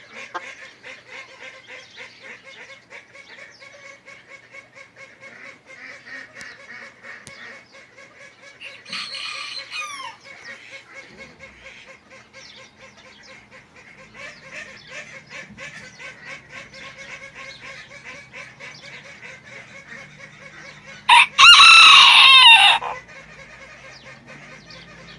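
Serama bantam rooster crowing: a shorter, softer crow about nine seconds in and a long, loud crow about twenty-one seconds in, each falling in pitch at the end. Faint rapid chirping runs underneath throughout.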